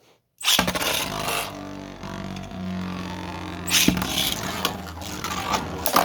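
Two 3D-printed Beyblade tops launched into a stadium: a sudden launch and clatter as they land, then a steady spinning hum as they circle, a hard clash about four seconds in, and more knocks and scrapes as they collide near the end.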